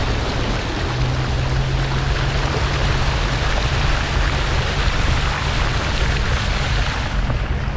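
Flood water spraying and rushing off a Volvo's front wheel and against its wheel arch as the car drives steadily through the water, with a low engine hum underneath. The splashing thins out near the end as the car leaves the water.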